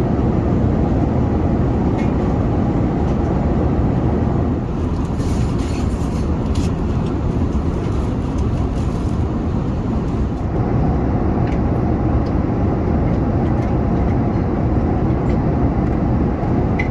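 Steady rumble of an Airbus A380 airliner heard from inside the cabin: engine and airflow noise, with a few faint clicks.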